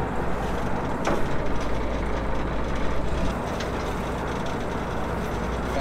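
Boat engine running steadily with a low drone, and a single sharp knock about a second in.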